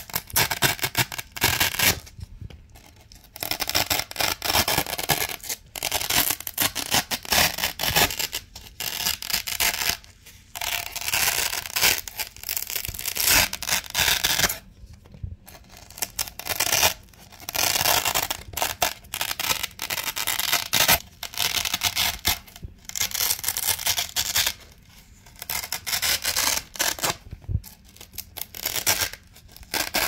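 Velcro (hook-and-loop) pads being ripped off a Velcro base: a crackling rip, pulled again and again, each pull lasting a second or two with brief pauses between.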